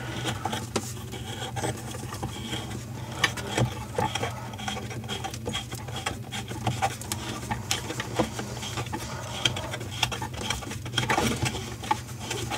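Irregular small clicks and scraping as a plastic faucet mounting nut is worked loose on its plastic shank under a bathroom sink, over a steady low hum.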